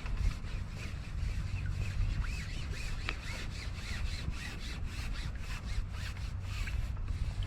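Wind buffeting the microphone with a steady low rumble, overlaid by repeated short rubbing and rustling noises of something being handled.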